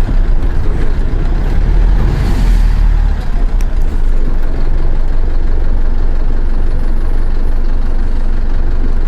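Mercedes-Benz OF-1418 bus's diesel engine running, with a short hiss of air about two seconds in. After about three seconds the engine drops back to a steady idle.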